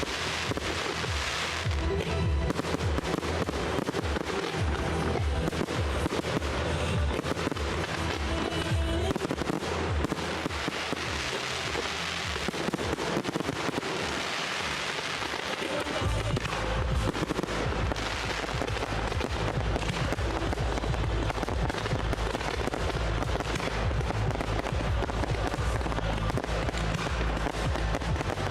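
Fireworks display going off in quick, dense volleys of bangs and crackling, over music played along with the show. The music's bass comes in heavier about halfway through.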